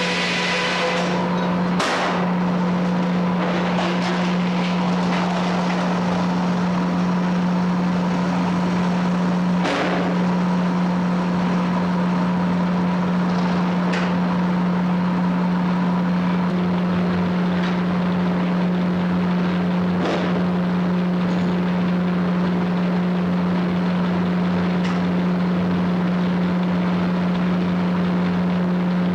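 Frick 00 sawmill running steadily with an unchanging low hum, and a few sharp knocks now and then.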